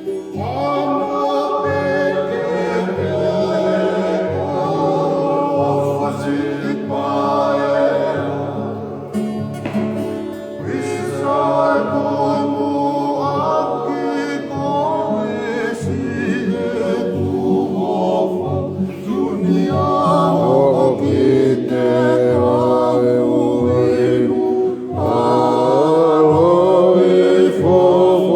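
A group of voices singing together in harmony, in the style of a Tongan faikava song, in phrases a few seconds long.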